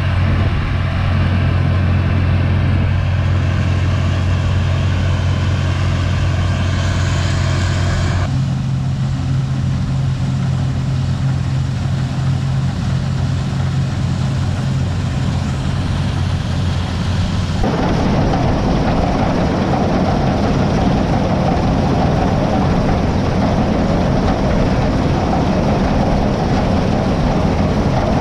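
Heavy farm machinery engine running steadily under harvest work. The sound changes abruptly twice, about 8 and 18 seconds in; the last part is a denser, noisier rumble.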